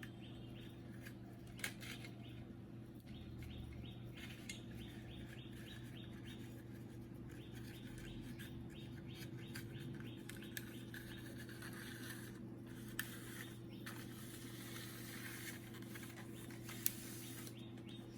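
Faint handling sounds: runs of light, rapid scratching and a few small clicks as a Teflon fuser film sleeve is worked onto the printer's fuser heater, over a steady low electrical hum.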